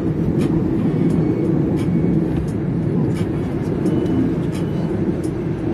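Wind buffeting the microphone aboard a moving boat: a steady, loud, low rumble, with a few faint ticks scattered through it.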